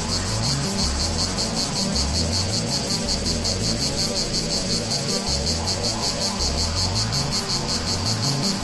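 Cicadas singing in a rapid, even pulsing chorus, layered over an analog synthesizer bassline of repeating low stepped notes.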